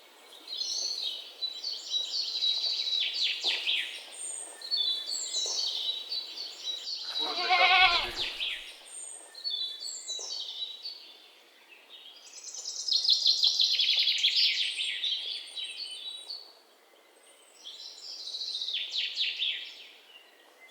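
Birds chirping and trilling in repeated bursts, with a single louder, wavering animal call about eight seconds in.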